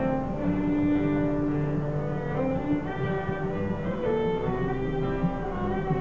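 Background music of string instruments: held notes that change pitch every second or so.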